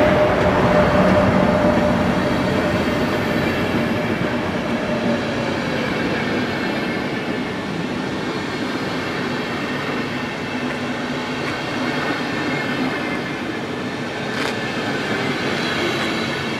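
Passenger coaches of a train rolling past, a steady rumble of wheels on rails. A whine from the receding electric locomotive falls in pitch and fades over the first five seconds, and faint high squealing tones from the wheels come in later.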